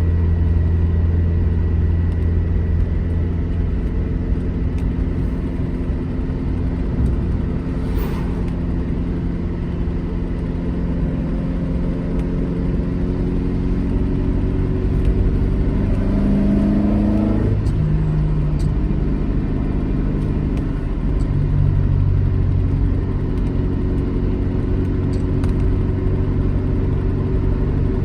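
Alfa Romeo GT Junior's twin-cam four-cylinder engine running steadily on the move. About two-thirds of the way through, the revs climb briefly and then fall back at a gear change.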